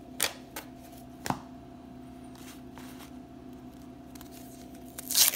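1991 Donruss baseball cards being handled and set down onto piles on a table: a few light clicks and taps, then a quiet stretch with a faint steady hum. A brief paper rustle comes near the end.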